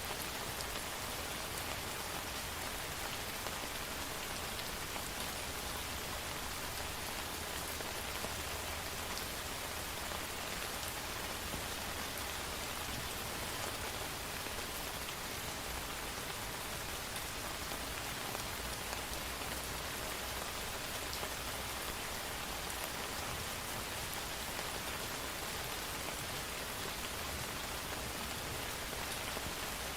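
Steady rain falling: an even hiss of many drops that holds at the same level throughout.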